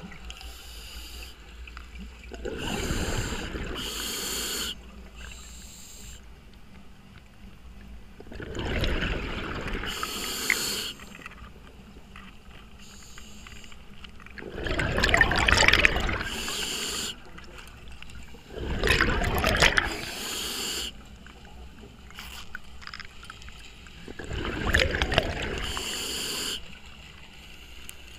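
Scuba diver breathing underwater through a regulator, heard from the diver's own mask: a hiss of gas on each inhale, then a rush of exhaust bubbles on each exhale. The breaths come about five times, roughly every five to six seconds.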